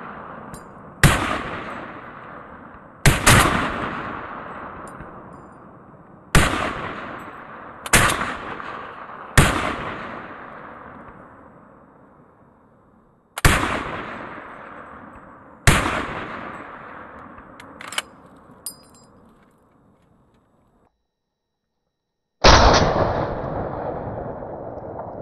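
M1 Garand semi-automatic rifle firing .30-06 rounds: eight single shots spaced one to four seconds apart, each ringing out for several seconds after the crack. A short, sharp click falls between the seventh and eighth shots.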